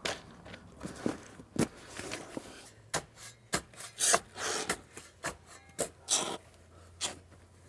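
Irregular rubbing, scraping and knocking as a pond liner is pulled and handled among stones: a string of short, uneven scrapes with a couple of longer rubs about four and six seconds in.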